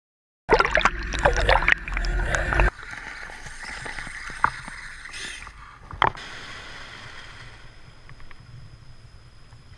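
Water churning and bubbling around a submerged action camera as a finned swimming robot moves through shallow sea water. It is loud for about two seconds, then settles into a quieter wash of water and surf with scattered clicks and one sharp knock about six seconds in.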